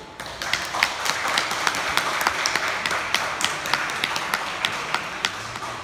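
Audience applauding at the end of a flute and keyboard piece, with separate, distinct hand claps standing out.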